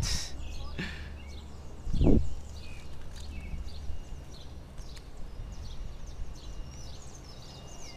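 Small birds chirping over and over in quick short calls, with a brief rustle at the start and a single loud thump about two seconds in.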